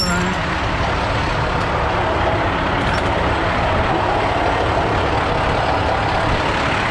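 Steady, loud rushing noise of a heavy truck running close by, with no breaks or distinct events.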